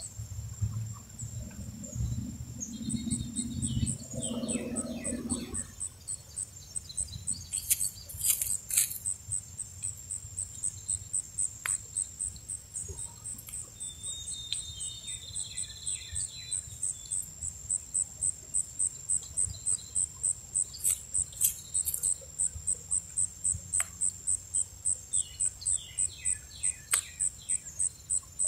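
Insects chirping in a steady, even rhythm of about three high chirps a second, with a few sharp taps among them.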